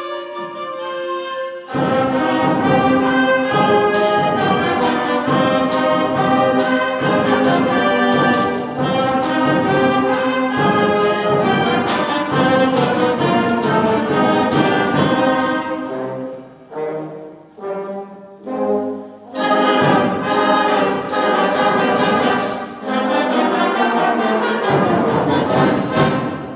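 Middle school concert band playing a rock-style piece with brass to the fore: a held chord, then the full band with drum hits, a run of short separated chords midway, and a last short chord that cuts off near the end.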